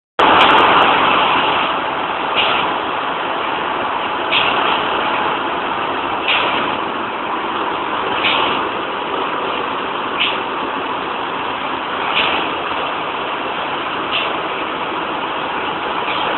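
Ship's engine room machinery running: a loud, steady, dense din with a short hissing accent that recurs about every two seconds.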